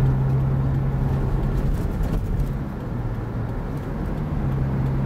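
Car interior at highway speed: steady engine drone and tyre and road rumble, with a constant low hum.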